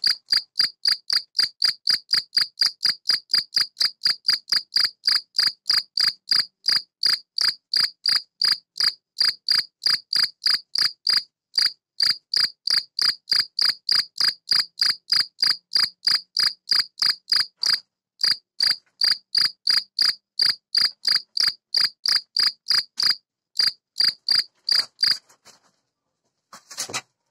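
Male field cricket (Gryllus campestris) stridulating its calling song: loud, even chirps at about three a second, with a few short breaks. It stops about two seconds before the end. The song is made by rubbing the forewings together and is the call adult males use to attract females.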